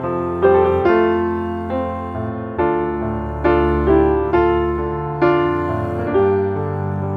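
Background piano music: a slow melody of struck notes, each one ringing and fading before the next.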